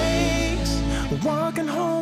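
Pop song playing as background music: a singer holds a long, wavering note over a steady deep bass, and the bass drops away about a second in before the next phrase begins.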